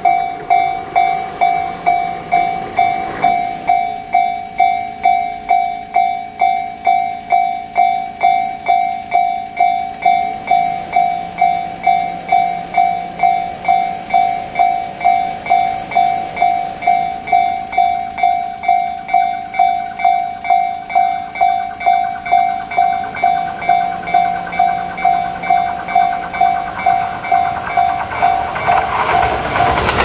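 Japanese railway level-crossing electronic alarm bell (Tobu 'sound C' type) ringing steadily, about two dings a second. Near the end, the running noise of an approaching Tobu 8000-series electric train rises under the bell.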